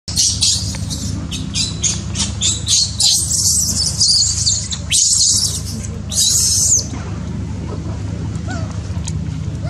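Baby macaque giving a rapid run of short, shrill squeals and screams for about seven seconds, then falling quiet: infant distress crying, typical of a baby wanting to nurse.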